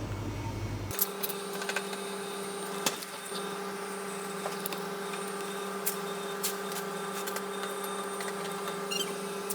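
A steady machine hum with a few light clicks and taps, starting abruptly about a second in.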